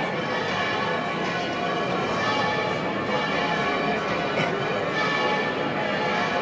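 Bells ringing continuously in overlapping peals, over crowd chatter.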